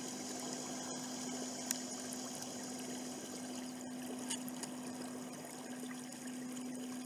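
Small tiller-steered motor on a canoe's stern running steadily, a constant hum over the swish of water moving past the hull.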